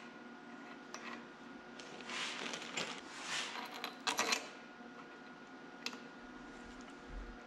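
Hand-fitting steel bolts with copper washers into a tractor transmission cover: a rustling about two seconds in, then a quick cluster of small metallic clicks and clinks about four seconds in and a single click near six seconds.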